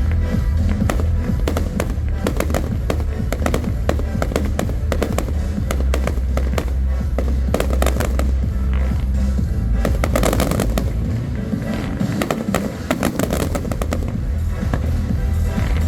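Fireworks going off: a dense run of sharp crackles and bangs over loud music with a heavy bass beat.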